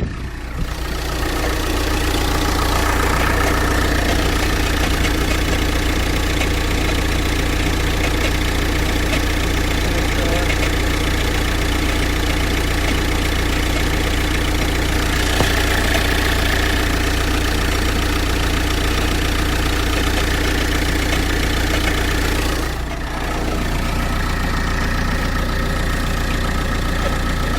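Audi A4 Avant's 2.0 TDI (BRE) four-cylinder diesel engine idling steadily, with an unidentified noise the owner heard from the engine after hard driving. The level dips briefly about 23 seconds in, then the idle carries on.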